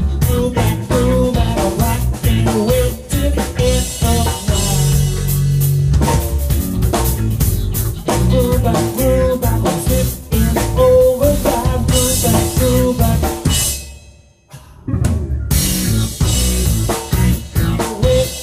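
A rock band playing live on drum kit and electric guitars, with the snare and bass drum driving a steady beat. About fourteen seconds in, the band stops dead for about a second, then comes back in together.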